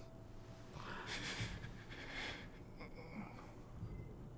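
Quiet breathing: two short, soft exhales, one about a second in and another a little past two seconds.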